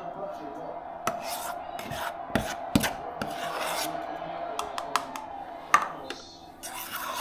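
A spoon scraping pudding mixture around a bowl and into small cups: a run of short scrapes with light knocks of utensil on bowl.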